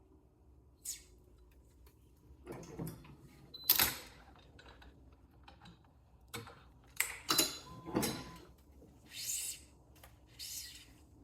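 Hands-on work on a badminton racquet during restringing: irregular clicks and knocks of tools and racquet against the stringing machine, the loudest a few seconds in, then two short hissing swishes about a second apart near the end.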